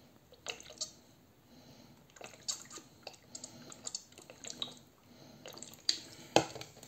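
Alcohol trickling and dripping from a squeeze-bottle nozzle onto mushroom pieces in a small glass jar, in faint irregular drips. A sharper knock near the end.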